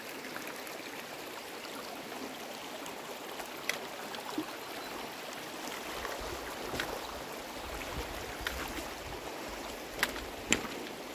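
Shallow river water rushing over stones in a steady hiss, heard while wading across a ford. A few short sharp clicks break through it, the two loudest near the end.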